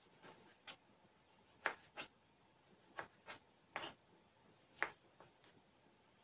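A kitchen knife chopping a tomato on a cutting board: about ten faint, irregular taps, often in quick pairs, as the blade cuts through and meets the board.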